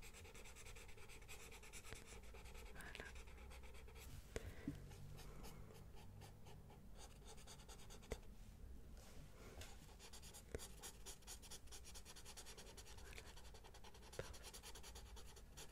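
Pencil sketching on paper close to the microphone: a steady run of soft, quick scratching strokes, with a few faint clicks here and there.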